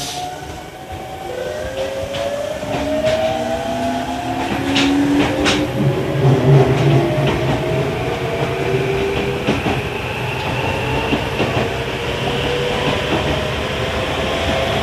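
Tokyu 1000 series train's GTO-VVVF traction inverter and motors whining as it accelerates away from a station, several tones climbing in pitch with speed over the wheels' rolling noise. Two sharp rail-joint clacks come about five seconds in.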